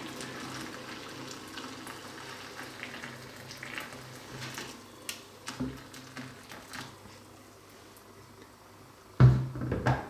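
Hot water bubbling softly, fading slightly, with a few small clicks and taps. About nine seconds in, a sudden loud knock, followed by a second near the end.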